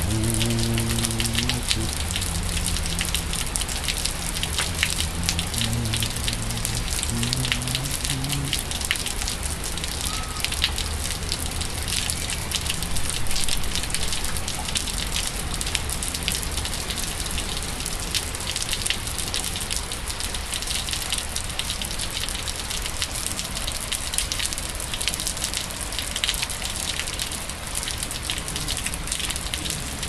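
Steady rain falling on wet pavement and puddles, a dense pattering of many drops. A low hum that shifts in pitch is underneath it for the first several seconds.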